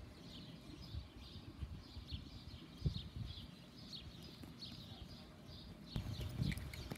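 Appaloosa horse's hooves thudding softly on sand footing as it moves around on a lunge line, with heavier footfalls about three seconds in and again near the end. Birds chirp over it.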